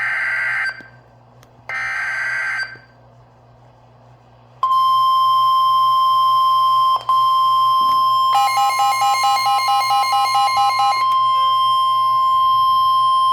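NOAA Weather Radio emergency alert opening: two SAME header data bursts, harsh digital screeches about a second long and a second apart. After a short pause comes the steady 1050 Hz warning alarm tone, held for about nine seconds. A rapid pulsing beep is laid over the tone for about three seconds in the middle. The sequence signals an incoming flash flood warning.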